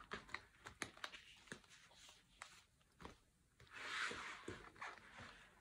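Light handling noises: scattered soft clicks and taps as plastic zip cash envelopes and a ring-binder wallet are handled, with a longer rustle about four seconds in.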